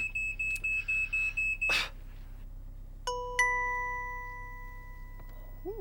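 Smoke alarm beeping rapidly on one high pitch, cutting off a little under two seconds in. About a second later two struck chime notes ring out a moment apart and fade slowly.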